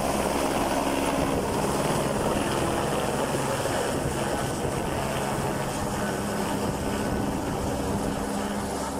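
Light helicopter with a three-blade main rotor lifting off and climbing away: steady rotor and turbine noise with a held low hum, slowly fading toward the end.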